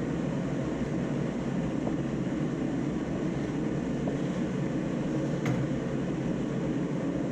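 Steady rushing background noise at an even level, with a light click about five and a half seconds in.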